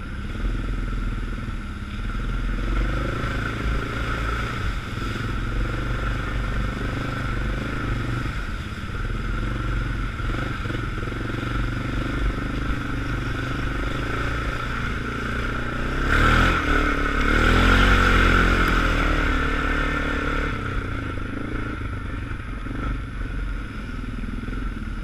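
ATV engine running steadily under way on a rough, slushy trail, heard from the machine's own mount. About sixteen seconds in it revs up louder with a rising pitch for a few seconds, then settles back.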